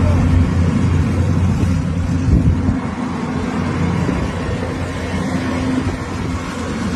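Diesel engine of a construction machine running with a steady low hum, which turns fainter and rougher about three seconds in.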